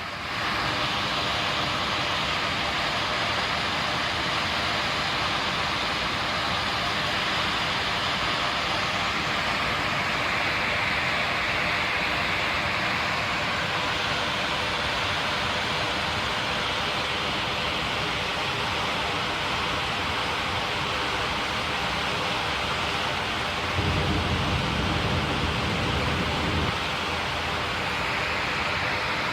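Flood-swollen creek pouring over a waterfall: a steady, loud rush of water. A lower rumble rises for about three seconds near the end.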